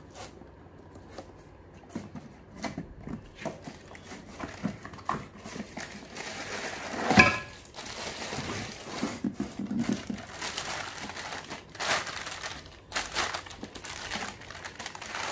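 Clear plastic bag crinkling and cardboard box rustling as a griddle is pulled out of its packaging, with irregular small clicks and one sharp knock about seven seconds in.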